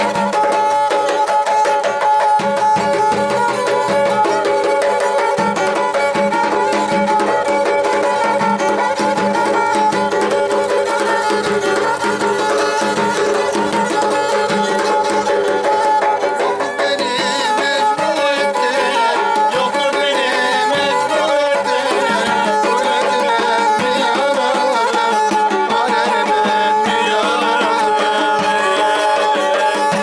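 Traditional folk music: a bowed pear-shaped folk fiddle plays a melody while a large double-headed davul drum is beaten in a steady rhythm.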